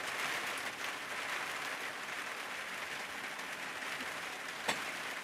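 Steady hiss of rain falling, with a single sharp click near the end.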